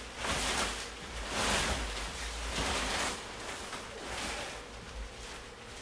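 Hyke & Byke Zion 2P inner tent, mesh and fabric, rustling as it is lifted, shaken out and spread over its footprint, in several swells of rustling about a second apart.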